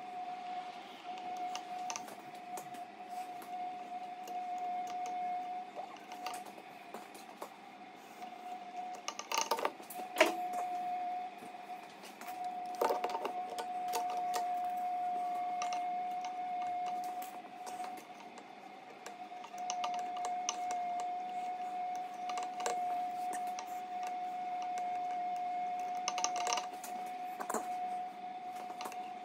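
Light metallic clicks and ticks of piston rings being spread and slid into the grooves of an A-Series piston, scattered and irregular, with a few sharper clicks about nine to ten seconds in and again near the end. A steady high-pitched hum runs underneath.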